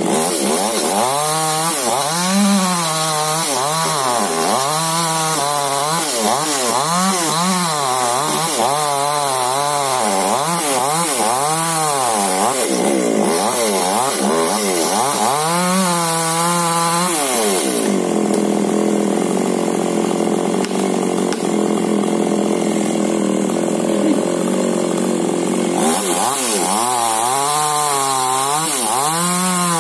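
Two-stroke chainsaw cutting into a large tree, its engine pitch rising and falling about once a second as it bogs and recovers in the cut. It holds a steadier pitch for several seconds in the middle, then rises and falls again near the end.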